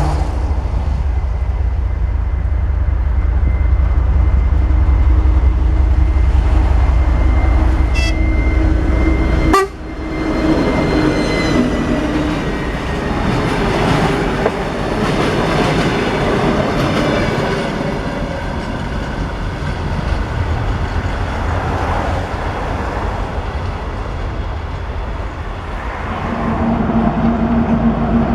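Diesel locomotive-hauled train running along the tracks at a station, with a heavy engine rumble, wheel clatter and a horn. The low rumble cuts off suddenly about ten seconds in.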